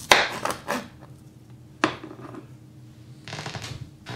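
Kitchen knife cutting the end off a peeled daikon radish and knocking on the cutting board: a few sharp chops, the loudest just at the start and another a little under two seconds in, with a short rustle near the end.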